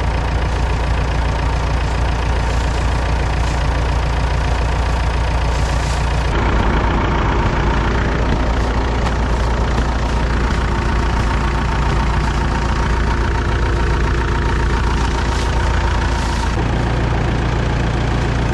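Old tractor engine running steadily; its note changes about six seconds in and again about sixteen seconds in.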